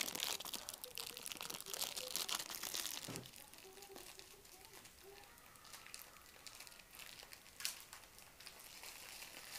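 Crinkling and rustling handling noise with scattered small clicks, as the small cables and parts of a Bluetooth receiver are worked by hand. It is loudest in the first three seconds, then fainter.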